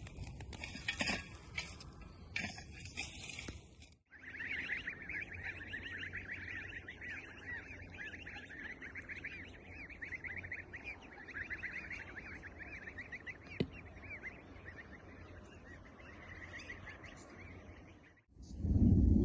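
A few seconds of crackling, scraping clicks, then, after a cut, a dense, continuous chatter of many short bird calls from a flock, with one sharp click partway through.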